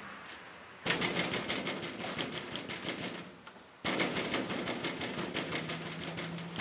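Puppy claws scrabbling on a wicker chair, with the woven wicker crackling: a rapid run of clicks in two stretches, with a short lull a little after three seconds in.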